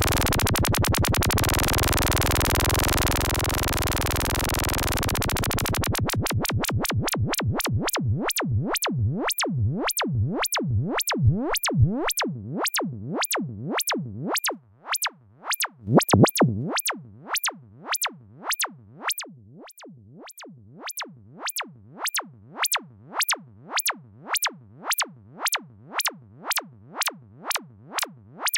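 Synthesized sound from a VCV Rack software modular synthesizer patch: white-noise hiss for the first several seconds, mixed with rapid clicking pulses. The pulses then slow into a steady train of sharp electronic hits, each dropping quickly in pitch like a synth kick drum, at about one and a half per second.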